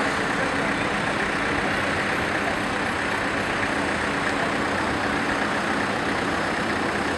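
Steady road-traffic noise of cars running and passing, with an engine idling that fades about a second in.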